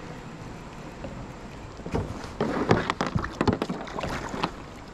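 A hooked smallmouth bass splashing at the surface beside a kayak while being brought in: a quick run of irregular splashes and knocks starting about two seconds in.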